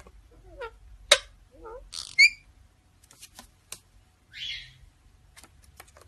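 Indian ringneck parakeets chattering: short warbling chirps mixed with sharp clicks, a loud shrill squeak about two seconds in and a harsh, raspy squawk about four and a half seconds in.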